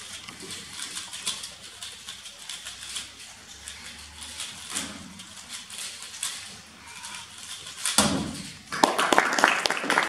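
Rapid plastic clicking of a 3x3 speedcube being turned during a solve. About eight seconds in comes a thump as the hands slap down to stop the timer, and then a burst of loud clapping from the audience.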